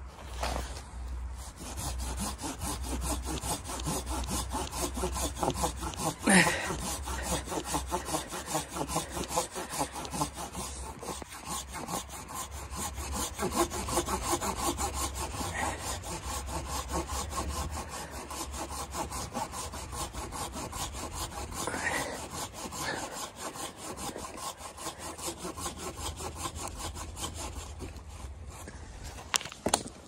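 Folding hand saw cutting through a dead log, with steady back-and-forth strokes that stop shortly before the end, and one sharper knock about six seconds in.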